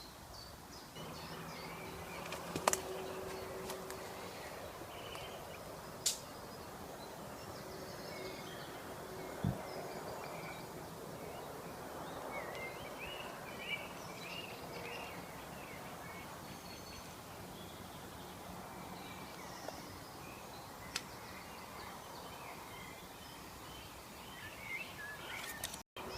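Woodland ambience: steady background noise with small birds chirping now and then, a faint low hum, and a few scattered sharp clicks.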